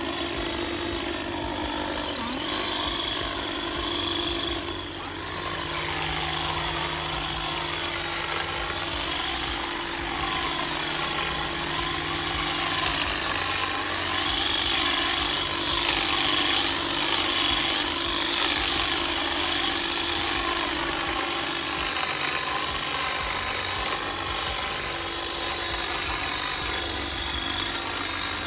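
A motorised garden power tool, such as a hedge trimmer or lawn mower, running steadily at constant speed, with the sound swaying as it moves about.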